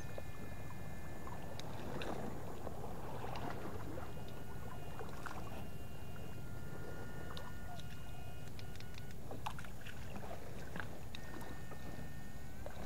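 Water sloshing over a steady low rumble, with a homemade electrofishing shocker giving a thin high electronic whine that switches on and off abruptly several times, with a few light clicks.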